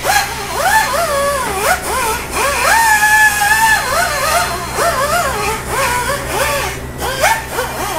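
A voice singing a wavering melody, with one long held note about three seconds in, over a steady low hum. The singing stops just before the end.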